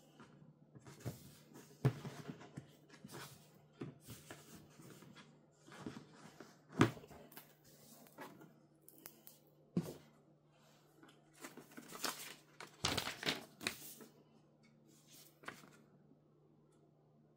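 Packaging being handled while a router is unboxed: irregular rustling and scraping of cardboard and plastic with a few sharper knocks as parts are set down.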